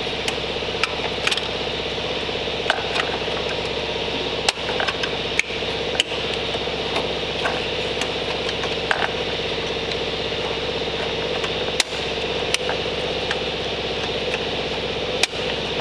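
Plastic wiring connectors being handled and pushed onto a car's control unit: scattered sharp clicks and knocks, several louder ones spaced a few seconds apart, over a steady machine hum.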